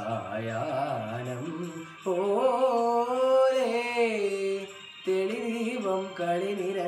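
A teenage boy singing a Malayalam semi-classical song solo, in melodic phrases with short breaths about two and five seconds in. Between the breaths he holds a long note that wavers in pitch near its end.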